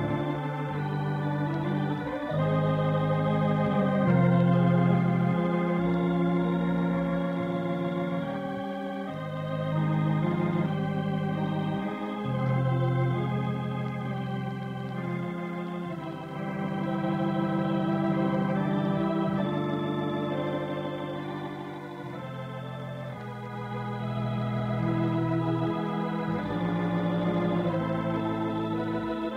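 Organ playing slow, held chords as the program's closing music. The sound stops at about 4 kHz, the narrow, dull sound of an old radio transcription.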